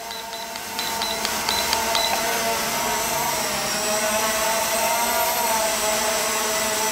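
Holy Stone HS440 quadcopter's brushed motors whining steadily while it hovers and drifts, the pitch wavering slightly. In the first two seconds there is a run of short high beeps from the remote controller as the trim is set.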